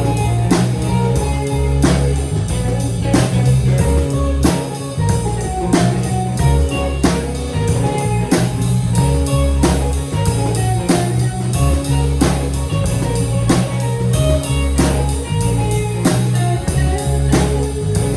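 Instrumental band music: guitar over low bass notes and a drum kit keeping a steady beat.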